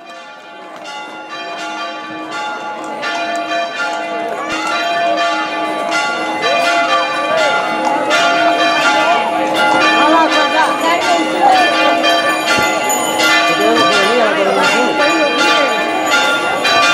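Church bells ringing a rapid, continuous peal, strike after strike over long ringing tones, fading in over the first few seconds, with crowd voices mixed in.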